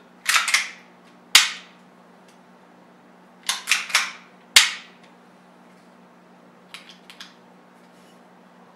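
WE Glock 18C Gen4 gas blowback airsoft pistol having its slide racked by hand twice: each time a quick run of clicks as the slide is drawn back, then one sharp snap as it slams forward. A few lighter clicks follow near the end.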